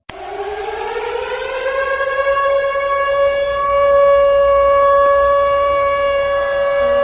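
Civil defense siren wailing. It cuts out for an instant at the start, then its pitch climbs over about two seconds and holds steady.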